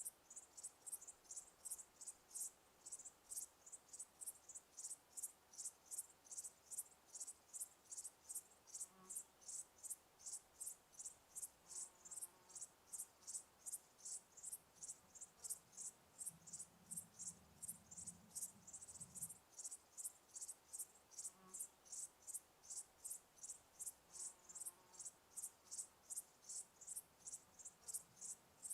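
A cricket chirping steadily in a regular rhythm, about two to three high chirps a second, with a faint low rumble for a few seconds past the middle.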